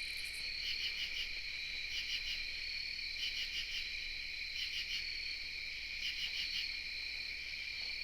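Night insect chorus: a steady, unbroken high trill with a second insect's pulsed chirps in groups of three or four, repeating about every second and a half.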